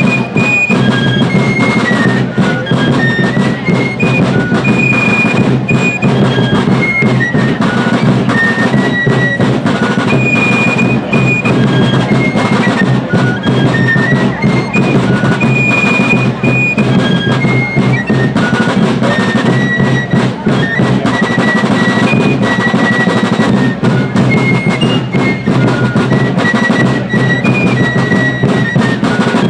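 Fife and drum corps playing a tune: fifes carry a high melody over a steady rhythm of snare and bass drums.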